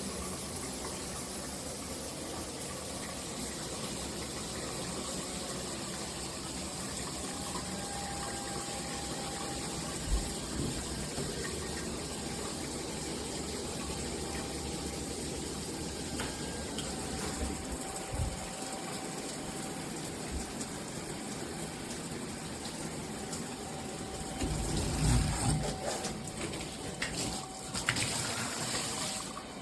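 Water spraying steadily from a high-pressure dual shower head, a continuous hiss of spray, with a few low knocks and a louder, splashier stretch near the end.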